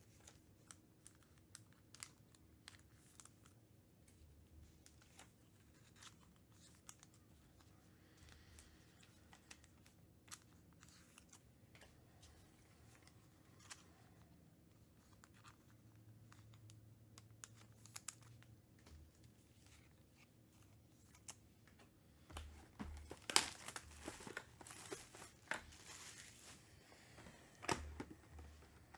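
Faint scattered clicks and rustles of handling, then about 22 seconds in, louder tearing and crinkling as a 2021 Panini Chronicles Baseball box's packaging is torn open.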